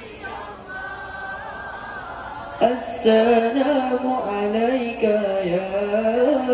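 A young man singing an Islamic devotional song into a microphone, a solo voice with long ornamented, wavering lines. After a softer held note, the voice comes in strongly about two and a half seconds in.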